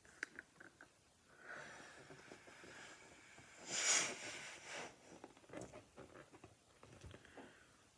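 A green latex balloon with a little water in it being blown up by mouth: breath rushing into it for a few seconds, loudest about four seconds in. There are short clicks before and after as the rubber neck is pinched and handled.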